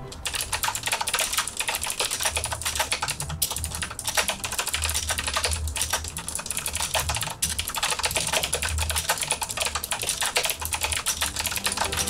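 Continuous typing on a Fineday retro typewriter-style mechanical keyboard with round keycaps: a rapid, steady stream of key clicks.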